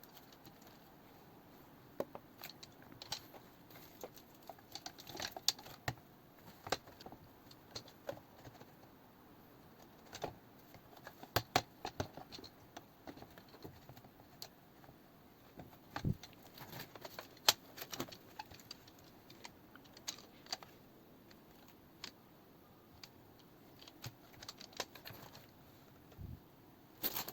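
Irregular light clicks, taps and knocks as hardware is handled and fitted into a PC case, with a few louder knocks now and then as a part catches and is pushed into place.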